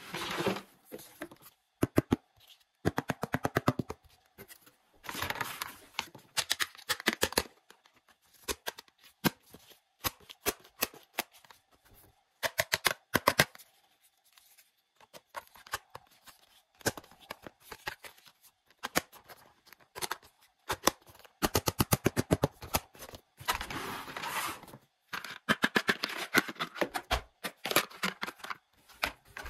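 Hands unboxing a plastic toy kitchen set: cardboard scraping and rustling as the box is opened and emptied, with many light clicks and taps of hard plastic pieces being handled and set down.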